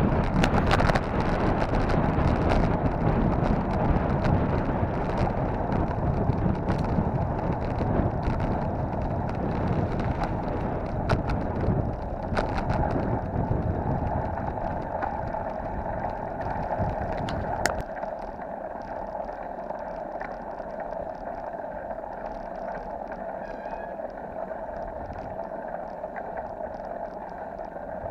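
Wind rushing over the microphone of a bicycle-mounted camera while riding, with tyre noise on a concrete road and scattered clicks and rattles. The low wind rumble drops off suddenly about two-thirds of the way through.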